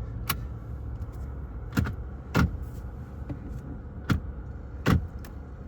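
Second-generation Toyota Prius pulling away with a low, steady rumble, broken by about five sharp clicks or knocks spread through it.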